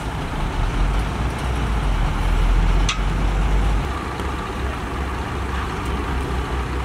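Diesel engine of a truck-mounted crane running steadily while the crane is worked from its control levers. The low rumble is heavier for the first few seconds and eases off about four seconds in, with a single sharp click just before the three-second mark.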